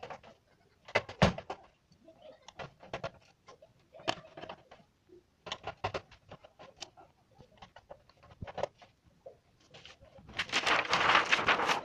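Irregular small clicks and scrapes of a screwdriver picking at a TV's thin plastic backlight reflector sheet. Near the end comes a louder, longer rustling scrape as the sheet is lifted off the panel.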